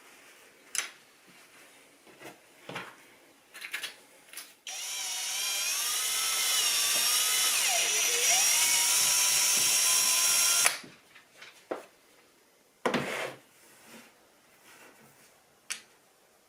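Small electric drill running for about six seconds, plausibly boring into a piece of branch; its whine sags in pitch partway through as the bit takes load, then recovers before it stops abruptly. Short handling knocks come before and after it.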